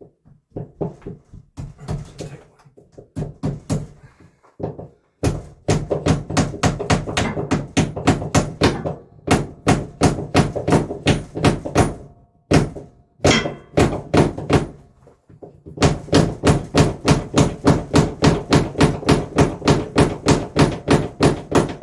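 Rapid, steady hammering, about four blows a second, in long runs with short breaks about 5, 12 and 15 seconds in.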